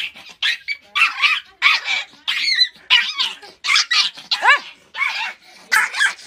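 Small puppy yapping over and over in rapid high-pitched barks, about two a second, while held and squirming.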